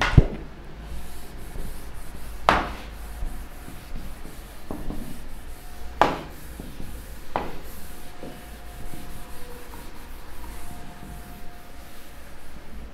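Whiteboard eraser rubbing back and forth across a whiteboard, wiping it clean, with a few sharp knocks along the way.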